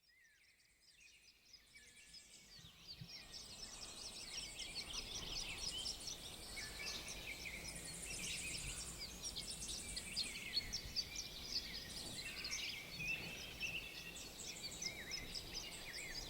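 A dense chorus of many birds chirping at once, fading in from silence over the first few seconds.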